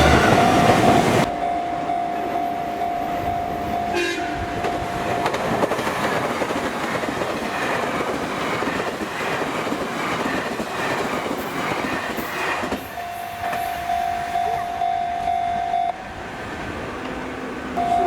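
A Japanese level crossing warning bell rings while a JR Central 383 series limited express electric train passes. The train sounds its horn as a courtesy greeting to the trackside filmer, then its wheels clatter over the rail joints for several seconds. The bell is heard again after the train has gone by.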